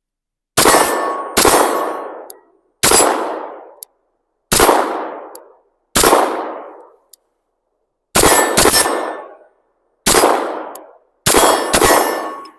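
About ten 9mm pistol shots from a CZ P-10, fired at an unhurried, uneven pace with a couple of quick double shots. Each crack rings out with a long echo.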